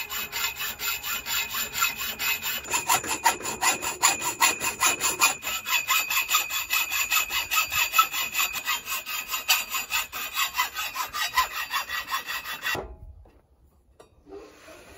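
Hacksaw cutting through a galvanized steel fence top rail pipe: fast, even back-and-forth rasping strokes that stop abruptly near the end as the cut is finished.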